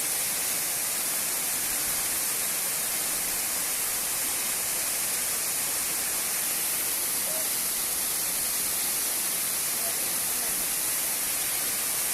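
Waterfall: falling water rushing in a steady, unbroken hiss-like noise.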